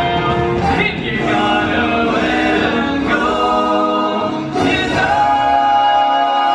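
Live stage musical: several singers hold long notes in a show tune over the show's backing music, with a short dip about four seconds in before the voices come back in.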